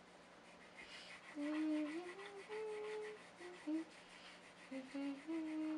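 A young girl humming a wandering tune of held, gliding notes, starting about a second and a half in. Under it, a marker scratches on paper as she draws.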